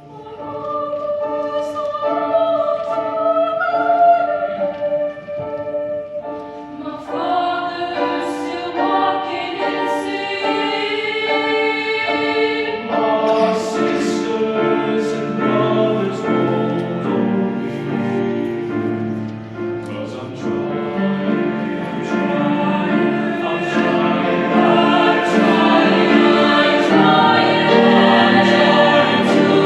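Madrigal choir singing in parts. Upper voices carry the melody at first, more parts come in about seven seconds in, and low voices join a few seconds later, the sound growing fuller and louder toward the end.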